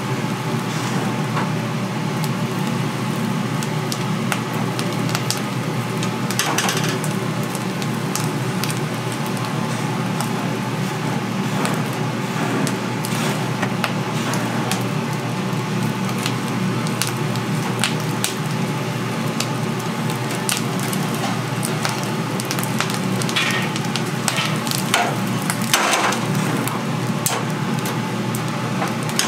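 Chicken feet sizzling over a charcoal grill, with scattered sharp crackles over a steady hum.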